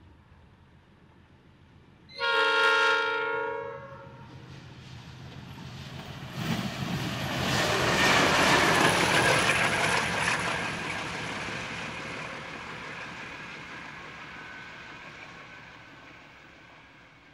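Diesel-electric locomotive 8037, running light at high speed, sounds one short multi-tone horn blast, then passes close with engine and wheel noise that builds to a peak about eight seconds in and fades steadily as it runs away.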